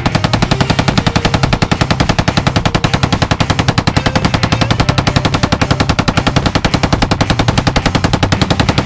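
Belt-fed machine gun firing one long continuous burst of fully automatic fire, about ten shots a second.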